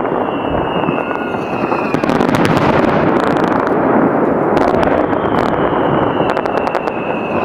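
Fireworks display in a dense barrage: continuous booming and rapid crackling bursts, with two long whistles sliding slowly down in pitch, one early on and one running into the end.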